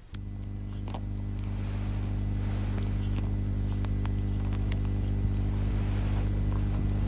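Steady electrical hum with faint scattered clicks and crackle: the noise of an old archive television soundtrack. It comes in at the cut and swells slightly over the first couple of seconds.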